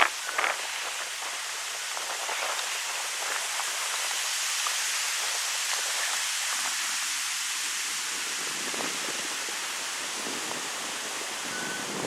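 Wind blowing through birch trees: a steady hiss of rustling leaves, with two sharper rustles right at the start.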